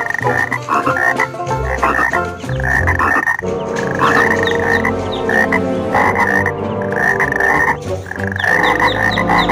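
Frogs croaking, a dense run of repeated calls with a couple of short breaks.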